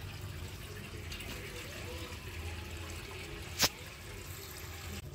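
Water from a garden hose pouring steadily into a large, partly filled aluminium cooking pot. A single sharp click about three and a half seconds in.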